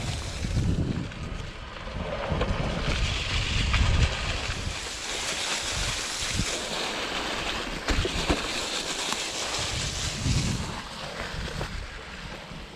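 Wind buffeting the microphone of an onboard camera on a mountain bike riding a dirt trail, with gusty rumble from the tyres and airflow and a few sharp knocks as the bike rattles over bumps.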